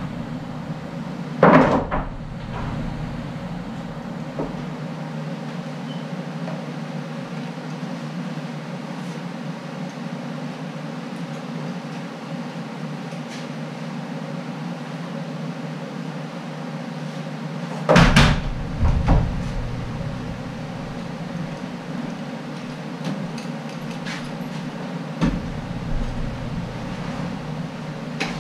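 Wooden knocks and clatter as lumber boards are set down and shifted on sawhorses: one about a second and a half in, a louder pair about two-thirds through, and one more near the end, over a steady low hum.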